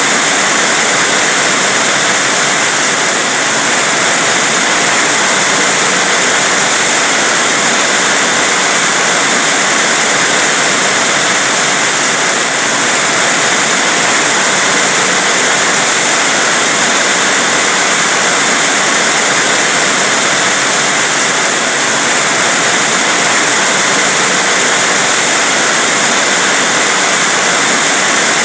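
Heavy rain falling in a steady, dense hiss that never lets up.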